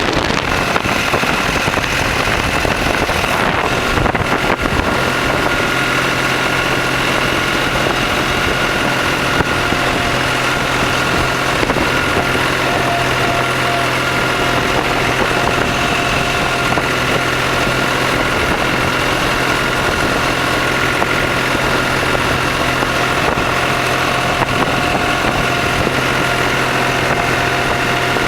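Tractor engine running steadily, with a low even hum that settles in about five seconds in.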